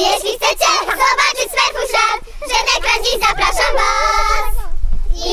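Several high-pitched, childlike voices talking and singing in quick phrases, with no clear words.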